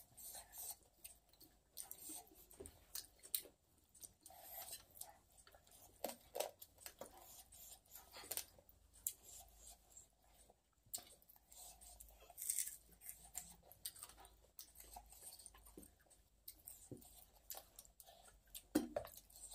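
Faint eating sounds: chewing and wet mouth smacks as rice is eaten by hand, with fingers gathering rice on a steel plate, heard as irregular short clicks and smacks.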